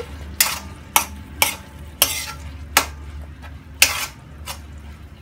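Metal spoon scraping and knocking against a non-stick wok while sliced chayote with dried shrimp is stir-fried, about seven uneven strokes, over a faint sizzle.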